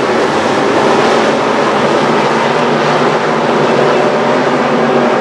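Engines of street stock race cars running loud and steady at speed on the track.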